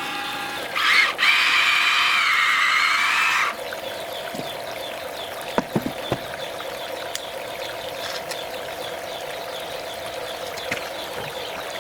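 Small water pump running steadily with water trickling through a sluice box, plus a few sharp knocks. Early on, a loud wavering high whine lasts about three seconds and then cuts off suddenly.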